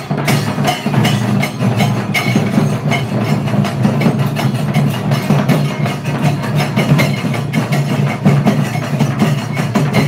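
Temple festival drums and percussion played live in a fast, dense rhythm of sharp strokes.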